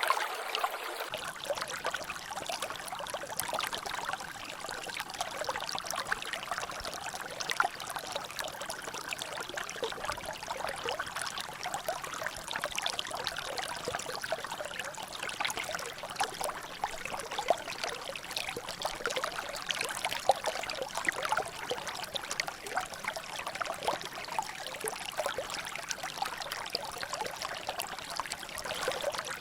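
Water trickling and dripping steadily in a small natural drainage, a dense patter of many small drops and splashes.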